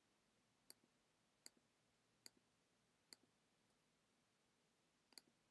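Faint clicks of a computer mouse button, each a press followed by a softer release: four evenly spaced clicks about one every 0.8 s, then a quick double click near the end.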